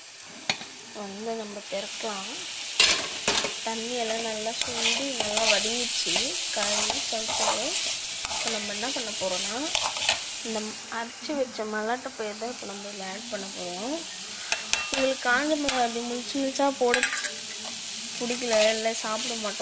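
Diced chow chow (chayote) sizzling in an aluminium kadai while a metal spatula stirs it, scraping and clinking against the pan.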